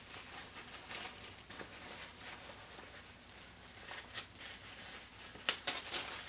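A disposable diaper rustling and crinkling as it is handled and fitted onto a silicone baby doll, with a few sharper crackles near the end.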